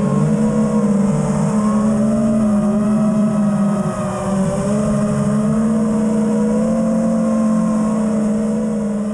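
Five-inch FPV quadcopter's brushless motors and propellers buzzing, heard from the GoPro on the quad itself, the pitch wavering up and down as the throttle changes.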